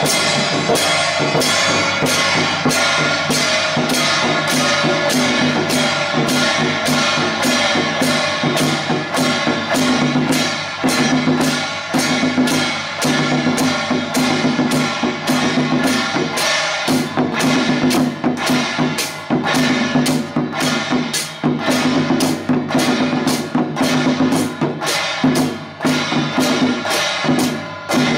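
Temple procession percussion band: a red barrel drum beaten with two sticks, together with hand cymbals and small gongs, playing an even beat of about two strokes a second under a sustained metallic ringing.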